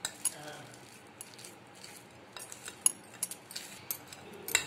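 Coarsely ground chana and urad dal being mixed by hand with spice paste in a bowl, with scattered sharp clicks and knocks against the bowl. The loudest clicks come about three seconds in and near the end.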